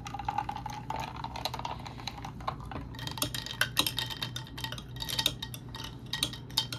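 Liquid poured into a glass, its pitch rising slightly as it fills, then a metal stirrer clinking rapidly and repeatedly against the glass as the drink is stirred.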